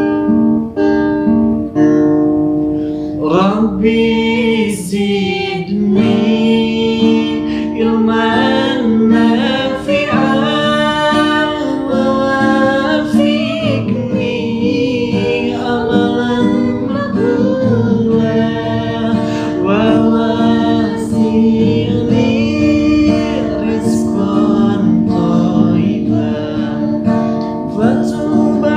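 Acoustic guitar accompanying a man and a woman singing an Islamic sholawat (devotional song) together; the guitar plays alone at first and the voices come in about three seconds in.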